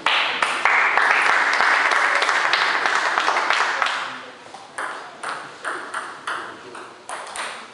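Spectators applauding for about four seconds after a point. Then a table tennis rally: the ball clicking sharply off the table and bats, about three hits a second.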